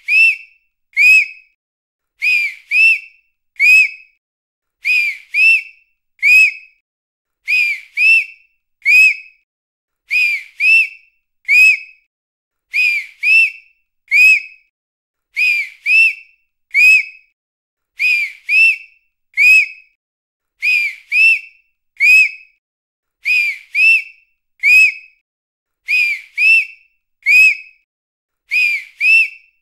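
Short, sharp whistle blasts, mostly in pairs, repeated with a pause of a second or two between each pair. Each blast is a brief, shrill high note.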